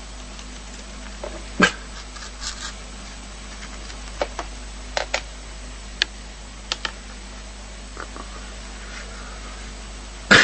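A dog making a series of short, sharp sounds at irregular intervals over a steady background hum, the loudest one near the end.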